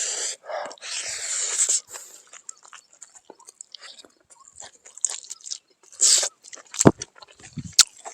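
A person chewing and biting cooked pork close to the microphone: wet mouth clicks and smacks, louder in the first two seconds, with two sharp knocks near the end.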